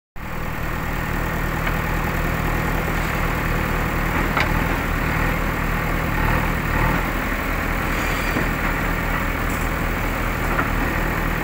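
Komatsu PC130 tracked excavator's diesel engine running steadily as the machine drives up onto a flatbed trailer, with a few faint clicks.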